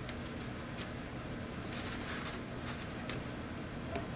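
Faint rustles and a few light taps from pieces of foam board being handled and set down on a workbench, over a steady low hum.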